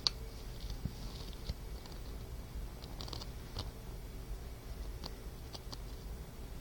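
A sleeping pet snoring softly, its breaths coming as faint hissing, with scattered small clicking mouth noises. The sharpest click comes right at the start, and a cluster follows about three seconds in.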